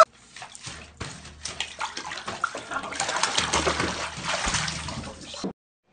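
Water splashing and sloshing in a bathtub as a hand moves through it. The splashes come thicker and louder from about three seconds in, then cut off abruptly near the end.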